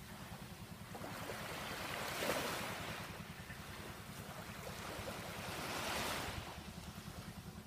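Small waves on a calm sea washing onto the beach, swelling and falling back every three to four seconds, with a low steady hum underneath.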